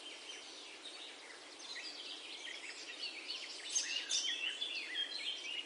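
Faint birdsong: many short chirps and twitters over a light hiss, growing busier from about two seconds in.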